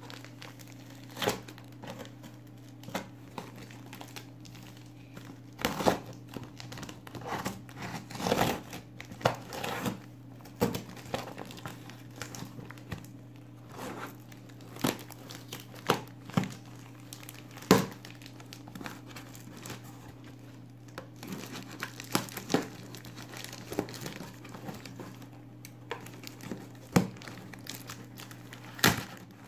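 Packing tape and clear plastic wrap being picked at, peeled and torn off a cardboard box: irregular crinkling with sharp rips here and there.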